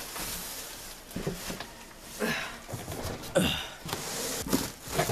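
Cardboard and foam packaging rustling and scraping as a large computer tower case is worked out of its shipping box, with a few short sharp scrapes about a second apart.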